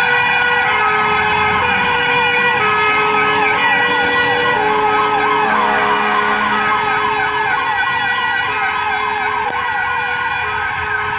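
Fire engine sirens sounding as the truck turns out on an emergency call. A two-tone hi-lo siren alternates between two pitches about once a second, over a second siren sweeping rapidly up and down. The sound slowly fades as the truck moves away.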